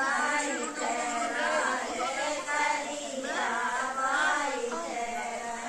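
A group of women singing a sohar, a folk song sung for a child's birth, in long, bending phrases with no instruments.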